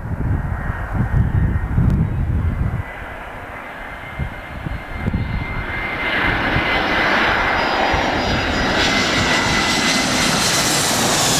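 Airbus A320 airliner on final approach with gear down, its jet engine noise swelling from a distant hum to loud as it passes low overhead, with a steady high whine that drops slightly in pitch near the end. A low, gusty rumble fills the first three seconds.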